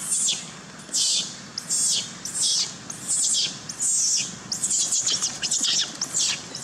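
Baby macaque screaming over and over: a run of loud, high, shrill squeals, each falling in pitch, one or two a second, some of them wavering.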